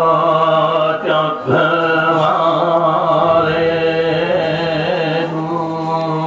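Buddhist pirith chanting in Pali: voices chanting together on long held notes over a steady low tone, with a short break about a second in.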